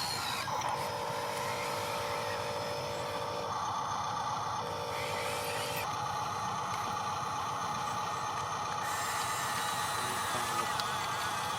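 Whine of the motors on a radio-controlled construction machine, a steady tone with a second, lower one cutting in and out several times as functions are started and stopped.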